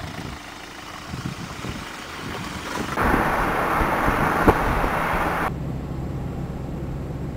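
A car on the road: low engine and road rumble, turning into a louder even hiss of tyre and wind noise about three seconds in, which gives way abruptly to a steadier low engine hum about two and a half seconds later.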